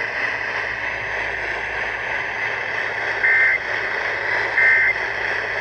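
Steady hiss of radio static, broken in the second half by two short bursts of the warbling two-tone digital data signal of the Emergency Alert System, a little over a second apart.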